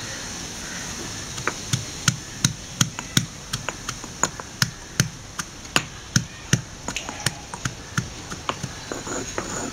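Stone pestle pounding half-boiled chana dal in a stone mortar, crushing it coarsely: sharp, irregular knocks about two or three a second, starting about a second and a half in.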